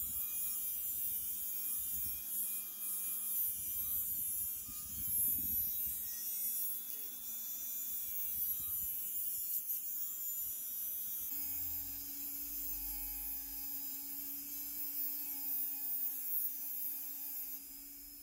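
Hand-held rotary tool (Dremel-type) spinning a small cutting disc against a brass strip: a steady high whine with a hiss of metal being cut, its tone shifting about two-thirds of the way through.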